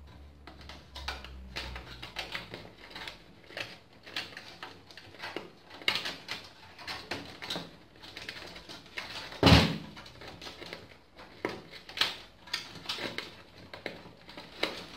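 Sleeved power-supply cables being pulled and routed through a steel PC case: an irregular run of clicks, scrapes and rustles of cable and plastic connectors against the metal, with one louder knock a little past halfway.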